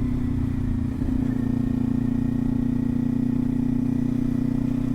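Kawasaki Ninja 400's parallel-twin engine running at a steady engine speed while riding, with a brief dip about a second in.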